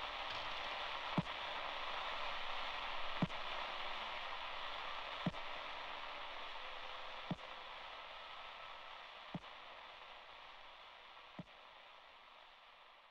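Steady static hiss with a sharp click about every two seconds, slowly fading out.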